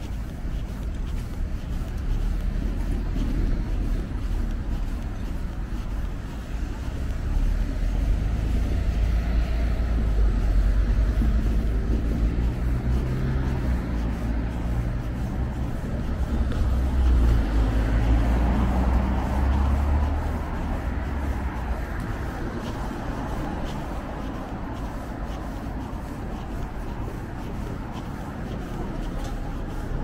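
Road traffic on a city street: a steady rumble of cars passing, swelling as vehicles go by about 8 seconds in and again about 17 seconds in.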